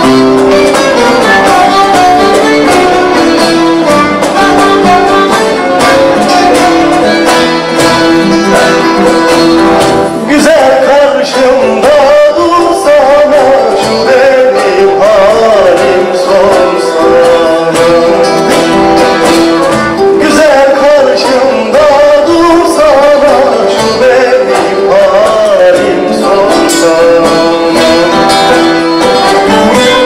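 Background music with plucked and bowed string instruments; about ten seconds in, a wavering melody line comes in over the accompaniment.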